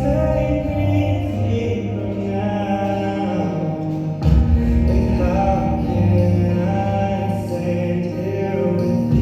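Music with a sung vocal line over sustained low bass notes, with a new phrase starting loudly about four seconds in.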